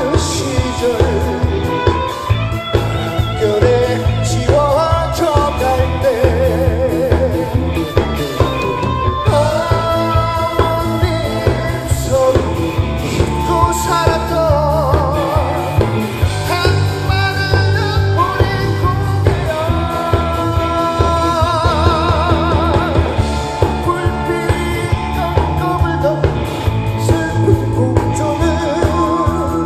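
Live rock band playing through a PA: a male singer sings into a microphone, holding notes with a wavering vibrato, over electric guitars, bass and a drum kit keeping a steady beat.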